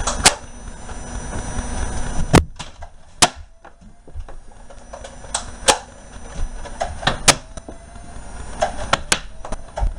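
Nerf blasters being primed and fired, with darts striking. It comes as a string of sharp clacks and knocks, about ten in all, irregularly spaced.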